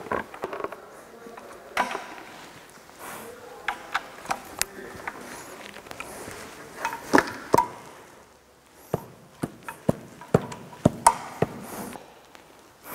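Irregular sharp clicks and knocks of metal engine parts and hand tools being handled as a cylinder head cover is fitted onto an engine on a stand.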